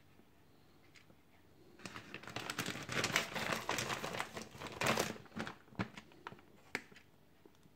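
Plastic bag of frozen french fries crinkling as it is handled, loudest from about two to five and a half seconds in, then a few light clicks.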